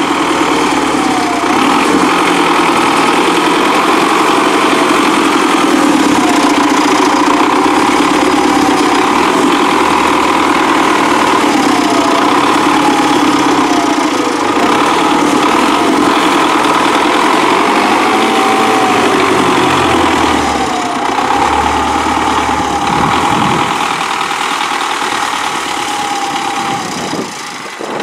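Belarus MTZ-952 tractor's four-cylinder diesel engine running steadily under load as it pulls a potato planter through the field; the low engine sound swells about twenty seconds in as the tractor comes closest, then drops away near the end.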